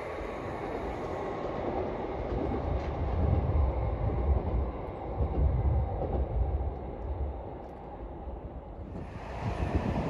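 Train running along the track, a dense rumble of wheels on rails that swells in the middle, with no horn clearly heard. The sound changes abruptly near the end.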